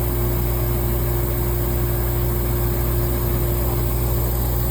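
Laser engraving machine running with its exhaust fan and air-assist pump switched on: a steady hum with a low drone and one constant mid tone.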